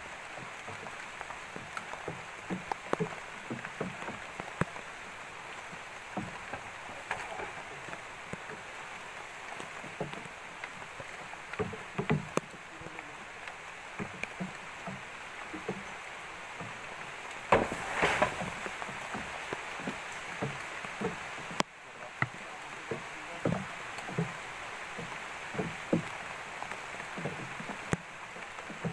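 A long, freshly cut bamboo pole hauled through wet undergrowth: scattered knocks and scrapes as it bumps the ground and stalks, with a louder rustling burst about eighteen seconds in. Under it runs a steady hiss of rain on the foliage.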